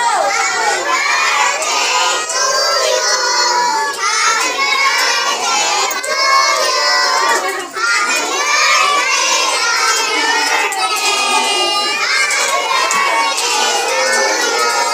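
A crowd of young children shouting and cheering together, many voices at once without a break.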